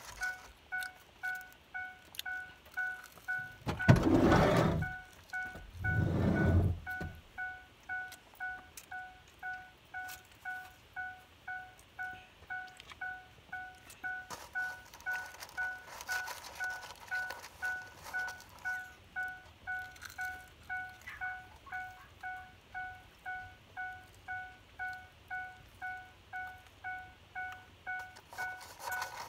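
Vehicle warning chime dinging over and over, about two chimes a second, the steady chime of a parked car with a door open or the key left in. Two louder thumps break in about four and six seconds in.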